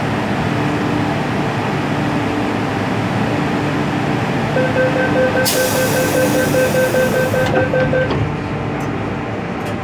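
MTR M-Train door-closing warning: rapid beeping at two pitches for about three and a half seconds, with a loud hiss partway through, over the train's steady hum. The doors slide shut near the end of the beeping.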